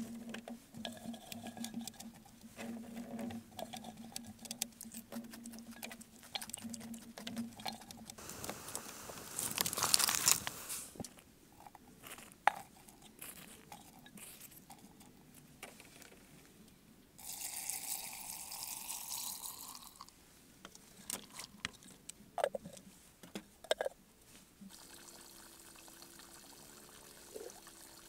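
Vegetables being packed by hand into an earthenware jar: cucumber strips and garlic cloves knocking and rustling as they go in, with many small clicks. About two thirds of the way through, liquid is poured in for roughly three seconds, followed by a few sharp clicks.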